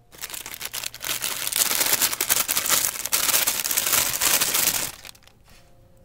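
Clear plastic wrapper crinkling and rustling as it is pulled off a frozen mini pizza, for about five seconds, then stops.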